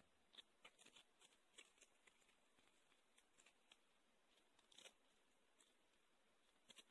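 Near silence, with faint scattered small clicks and ticks of hands handling the ribbon bow and glue bottle; one slightly louder click just before the five-second mark, and two more near the end.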